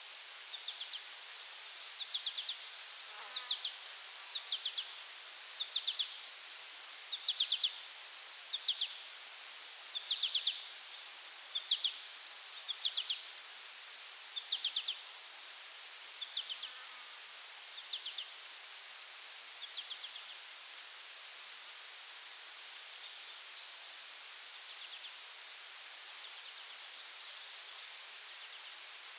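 Forest insect chorus: a steady high-pitched buzz with a fast pulsing trill beneath it. Over this comes a run of short, loud chirps about every second and a half, which stops about twenty seconds in.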